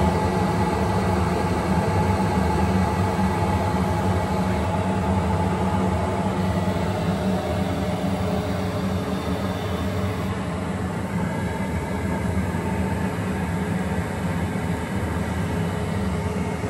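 Okamoto ACC-818NC surface grinder running, its grinding wheel spinning over the work: a steady machine hum made of several held tones over a bed of noise.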